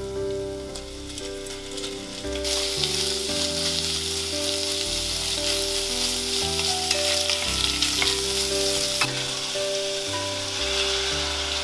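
Pork pieces and minced garlic sizzling in an enamelled cast-iron Staub pot as they are stirred with a wooden spatula. The sizzle turns loud about two seconds in and eases a little near the end. Soft background music plays throughout.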